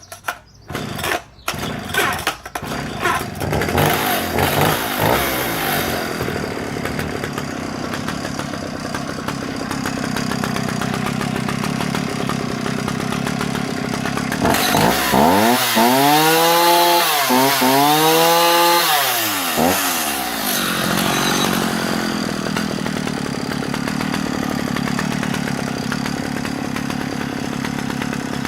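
Vintage Husqvarna 65 two-stroke chainsaw started with a few sharp pulls of the starter cord; it catches within a couple of seconds, runs unevenly, then settles into a steady idle. About halfway through it is revved up and down twice, then drops back to idle, running and idling cleanly after repairs to its ignition coil and fuel feed.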